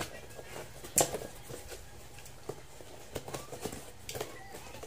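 Cardboard box and paper packaging being handled around a plastic mini rice cooker: faint rustling and small knocks, with one sharper knock about a second in.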